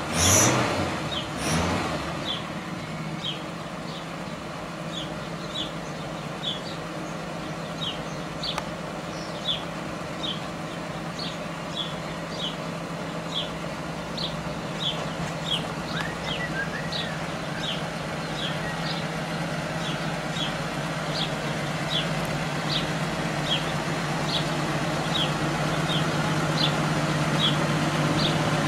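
Vintage Pontiac sedan's engine idling with a steady hum, growing louder near the end. A bird chirps a single high note over and over, about once every 0.7 seconds.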